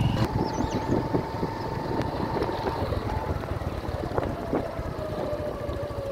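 Motorbike engine running as it rides along, with wind rumble on the microphone. Its pitch falls slowly in the second half as the bike slows.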